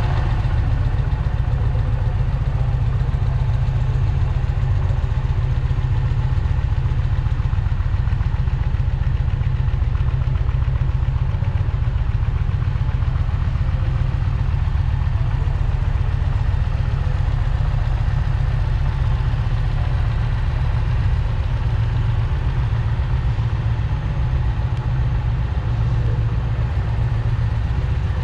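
2021 Indian Challenger Dark Horse's liquid-cooled PowerPlus V-twin idling steadily, a low, even rumble.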